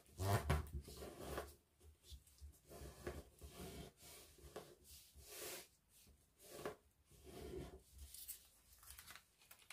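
Sheet of coloured origami paper being folded and creased by hand, pressed and rubbed flat against the table: a string of short, uneven paper rustles, the loudest about half a second in.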